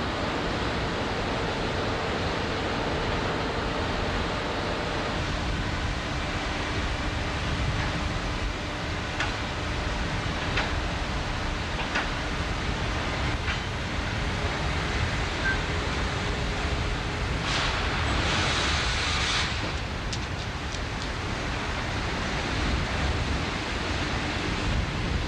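Steady roaring noise of blast-furnace plant machinery, with a few scattered clicks and a brief louder hiss about eighteen seconds in.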